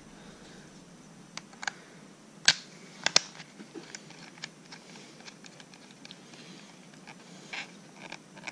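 Plastic clicks and knocks as a GoPro in its housing is handled and worked into a head strap's plastic mount, with faint rubbing in between; a few sharp clicks stand out, the loudest a little under halfway through.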